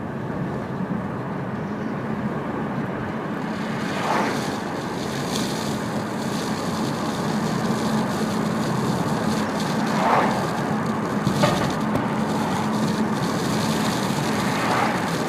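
Nissan Juke accelerating gently, heard from inside the cabin: steady engine and road noise with a few short rising tones, the unwanted sound that comes in at around 1000–1500 rpm under light throttle and goes away when the pedal is pressed harder. The owner guesses it may be fuel starvation.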